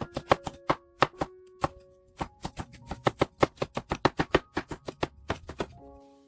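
Kitchen knife chopping on a cutting board in quick, even strokes: a short run, a brief pause about two seconds in, then a faster run of about six strokes a second that stops near the end. Quiet background music plays underneath.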